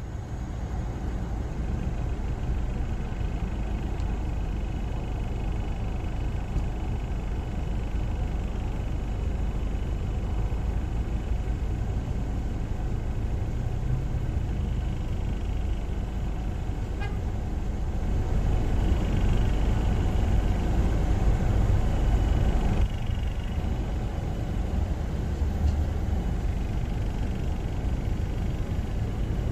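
Steady rumble of road traffic, with faint high tones that grow louder about two-thirds of the way through and cut off sharply about three-quarters of the way through.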